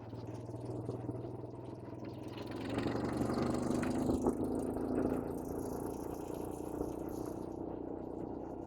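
Engine of an ATV quad bike running with a steady hum, getting louder as it picks up revs about three seconds in, then settling back to an even drone.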